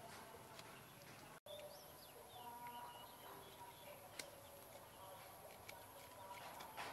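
Near silence: faint outdoor ambience with a few faint bird calls and a single light click about four seconds in.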